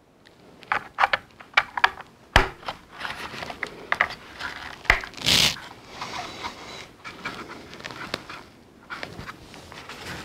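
Hard plastic toy parts being handled and pressed together as the rear railing of a Hasbro Tatooine Skiff is fitted into its deck: a run of small clicks and taps, with two sharp snaps about two and a half and five seconds in, and a short scraping rustle just after the second.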